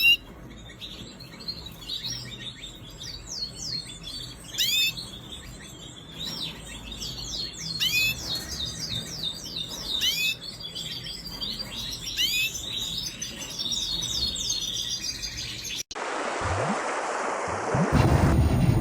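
Canary singing: a long run of quick chirps, rising sweeps and trills. About three seconds before the end it cuts off abruptly, and a louder, steady rushing noise with a low rumble takes over.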